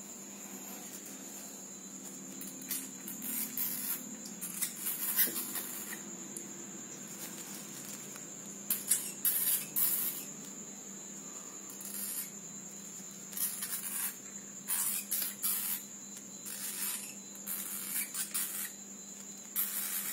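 A young Asian leopard cat hissing in repeated short bursts. Behind it run a steady high-pitched whine and a low hum.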